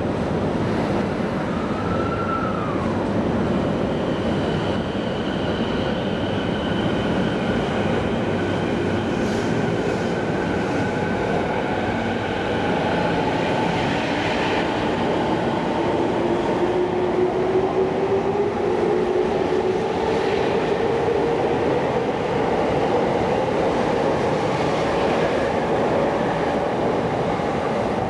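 Rinkai Line 70-000 series electric commuter train pulling out of a station and running past. Its wheels rumble on the rails, and its traction motors give a whine that climbs slowly in pitch as it gathers speed.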